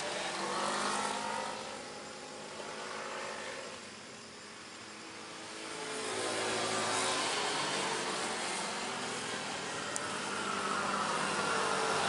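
Several motorcycles passing one after another, their engine sound swelling as each group comes close and falling away again, with a quieter lull about four seconds in and a pitch that slides as the bikes go by.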